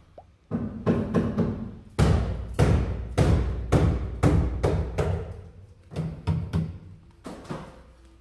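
Background music built on heavy drum hits in a steady beat, fading near the end.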